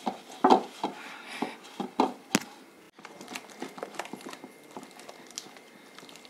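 A hand beating a stiff mixture of flour and creamed vegetable ghee in a steel bowl: irregular squelching slaps and knocks against the bowl, loudest in the first couple of seconds and lighter after that.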